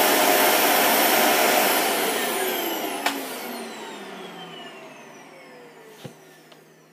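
Dyson DC40 Animal upright vacuum cleaner running, then switched off about a second and a half in. Its motor winds down with a falling whine that fades away over the next few seconds. A click about three seconds in and another about six seconds in.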